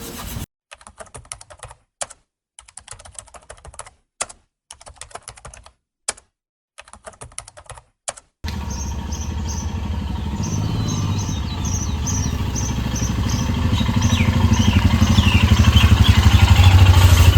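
Rapid clicking like keyboard typing, in short runs separated by dead silence, for about the first eight seconds. An engine then starts running steadily and grows louder toward the end, with faint high chirps above it.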